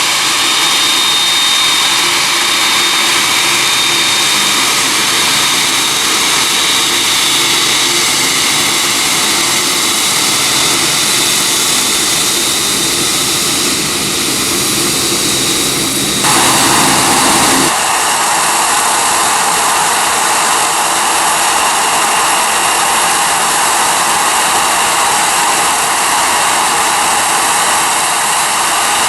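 Jet airliner engines running loud and steady, a dense rush with a high whine in it. A little past halfway the sound changes abruptly to a brighter, hissier rush.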